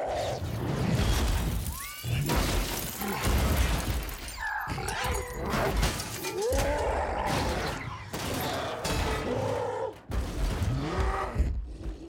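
Action-film battle effects of the Hulk smashing through wrecked cars and rubble: repeated crashes, shattering and heavy impacts over a low rumble, with bending growls and cries rising and falling through the middle and later part.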